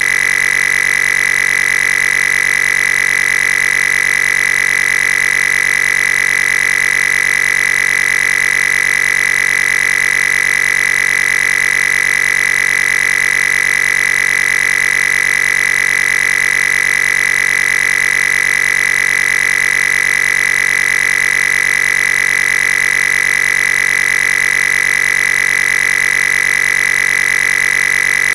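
Loud, unchanging electronic buzz with a strong steady tone high in pitch and a fine rapid pulsing, with no speech or other sound over it.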